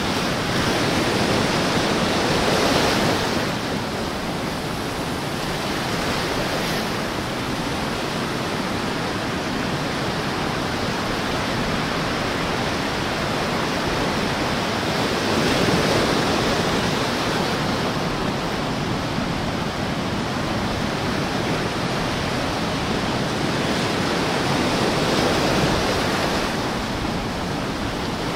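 Small ocean waves lapping and washing up the sand between rocks close by: a continuous rushing wash that swells louder three times as waves come in.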